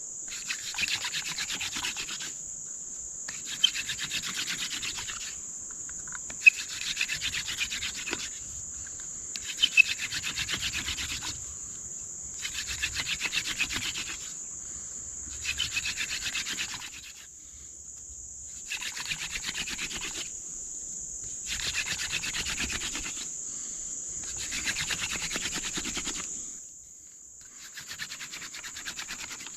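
Hand-drill spindle of dog fennel spun between the palms on a cedar fireboard: a rough, squeaky rubbing in about a dozen strokes, each about a second long with short gaps, and a few sharp clicks in the first ten seconds. Crickets trill steadily in the background.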